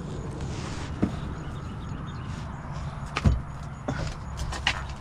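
A few scattered mechanical clicks and knocks as a Ford Mustang's clutch cable firewall adjuster is worked by hand, the loudest just past the middle, over a steady low hum.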